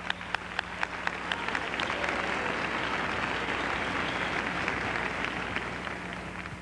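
Theatre audience applauding: scattered separate claps at first build into full, steady applause that dies down near the end. A steady low hum runs underneath.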